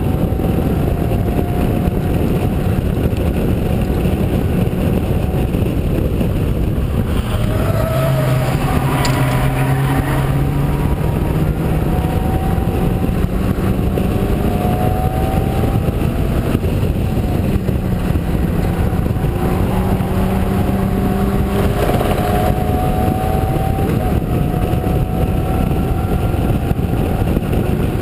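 Locost club racing car's engine running hard at race pace, its note climbing slowly through each gear and dropping back at the shifts, under heavy wind rush in the open cockpit.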